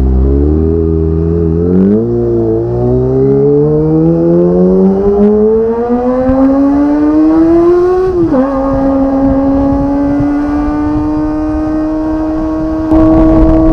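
Kawasaki ZX25R's 250 cc inline-four engine through a Magna aftermarket exhaust, accelerating on the road. The pitch climbs steadily for several seconds with a brief hitch near 2 s. About eight seconds in it drops sharply at a gear change, then holds nearly level.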